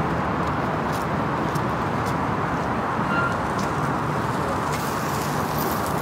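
Steady road traffic noise: an even, continuous hum of distant vehicles with no single car standing out.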